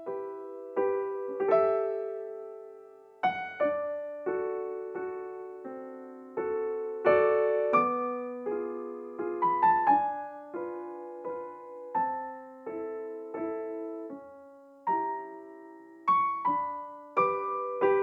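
Background piano music: an unhurried melody of single notes and chords, each struck and left to die away.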